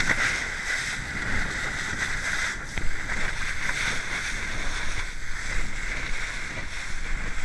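Water rushing and spraying along the hull of a fast-moving inflatable boat, with wind buffeting the microphone and a brief slap about three seconds in.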